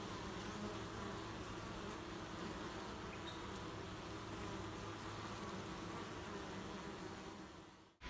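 Honeybees humming in a steady buzz of many bees at the hive entrance. It fades out just before the end.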